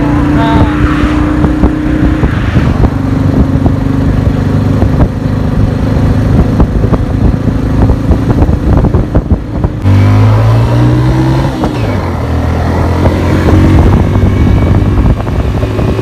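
Motorcycle engine running steadily while riding along a road. About ten seconds in the sound cuts, then the engine note climbs and drops back about two seconds later.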